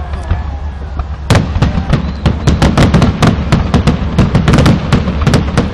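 Fireworks display: about a second in, a rapid volley of shell bursts and crackling bangs breaks out, several bangs a second, and keeps going.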